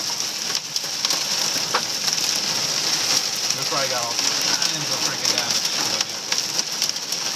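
Hail coming down hard in a dense, steady patter of many small impacts, with a sizzling hiss underneath.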